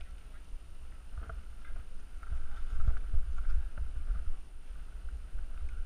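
Mountain bike rolling over a loose, rocky trail: a low rumble of bumps and wind with scattered knocks and rattles, getting louder and rougher about two seconds in.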